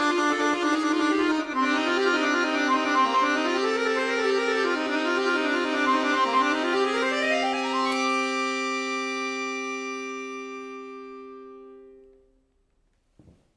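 Solo accordion playing fast running passages that climb in a rising run into a long held final chord, which fades away about four seconds later. A faint click follows just before the end.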